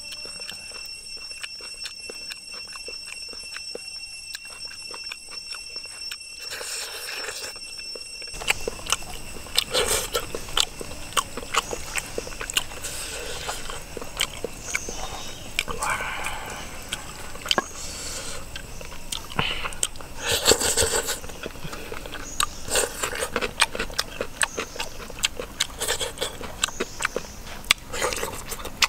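Whole boiled chicken being pulled apart by hand on a metal plate: wet tearing and crackling of skin and flesh, with many small clicks and squelches that come in bursts. It starts about eight seconds in, after a quieter stretch with a steady high-pitched tone.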